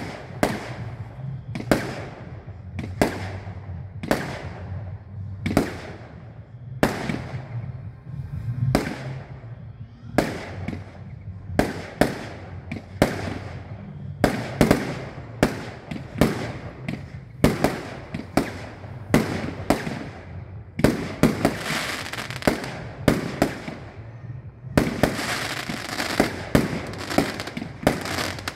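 Aerial fireworks display: shells bursting with sharp bangs about one or two a second, each trailing off in an echo. The bangs come thicker after about twenty seconds, and a dense crackle joins them near the end.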